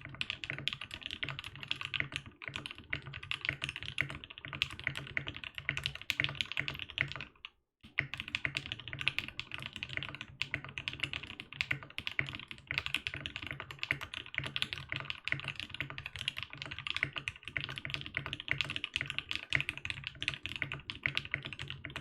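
Typing on a Project Keyboards Sirius60 mechanical keyboard with a polycarbonate case and plate and Tangies switches: a fast, steady stream of key clacks, with one brief pause a little before eight seconds in.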